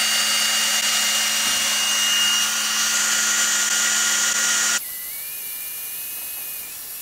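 Cordless drill driving an inline drill pump, pumping thick gear oil into a differential: a steady high motor whine under load. About five seconds in, the sound drops abruptly to a quieter, steady running note.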